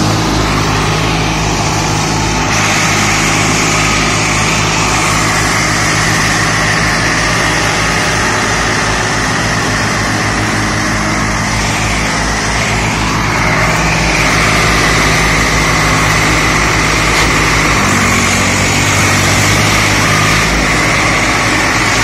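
Swaraj 744 tractor's three-cylinder diesel engine running steadily as the tractor drives, with a slight change in engine note about eighteen seconds in.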